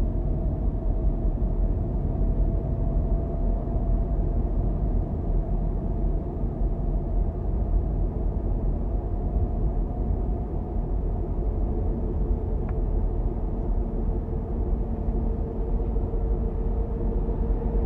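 Steady low rumble of a car driving: engine and road noise, with a faint hum that rises slowly in pitch.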